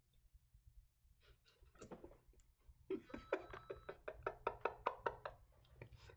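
A man laughing hard: faint at first, then from about three seconds in a rapid run of short laugh pulses, about five a second, that dies away near the end.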